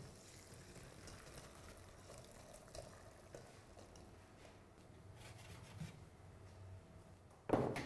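Faint trickling and dripping of hot water draining from boiled semolina dumplings in a steel mesh strainer held over a glass bowl, with a few small ticks; a louder knock near the end.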